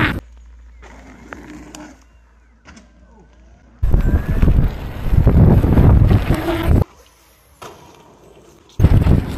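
Wind and riding rumble buffeting the microphone of a rider on an electric unicycle over rough off-road ground. It comes in two loud spells, from about four seconds in to nearly seven, and again just before the end. It cuts in and out abruptly, with quieter stretches between.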